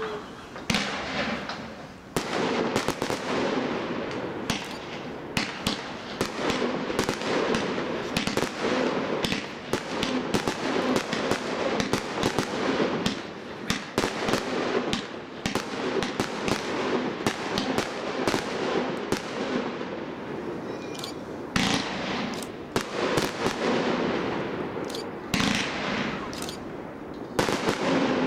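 A firework cake, a 136-shot one-minute item, firing a rapid, continuous barrage of shots, several a second, with the shells bursting and crackling overhead and only brief lulls between volleys.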